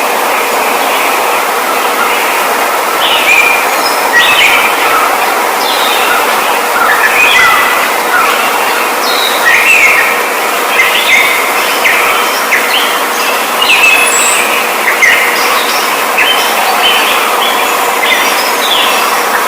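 A flock of small birds chirping, many short calls overlapping over a steady hiss with a faint hum.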